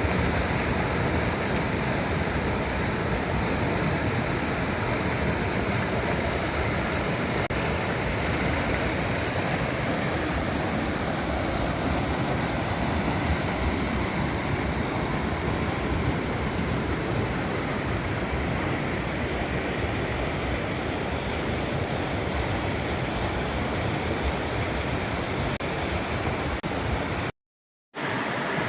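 Mountain river and small waterfall rushing steadily. The sound drops out for about a second near the end, then resumes.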